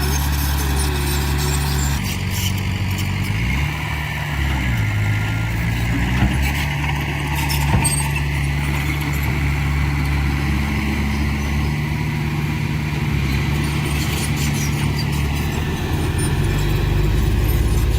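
Heavy diesel engine of a dump truck or bulldozer running under load. It holds steady, drops and climbs back in pitch a few seconds in, then runs steadily again.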